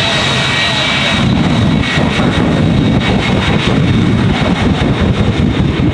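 The Smoke-n-Thunder jet truck's twin jet engines running with a loud, steady roar and a high whine. The whine drops back about a second in.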